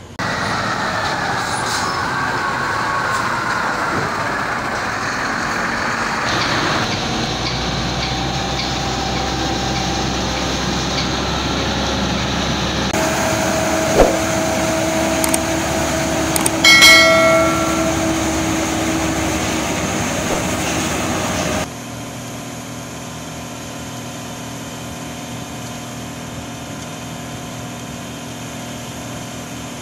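Concrete mixer trucks' diesel engines running on a dirt site, heard as several clips joined by abrupt cuts. There is a single sharp knock about 14 seconds in and a short horn-like honk about 17 seconds in, which is the loudest moment.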